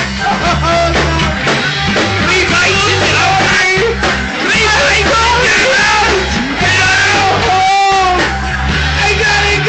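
Rock band playing loud with electric guitar and bass under shouted singing, with a brief break in the bass about 8 seconds in.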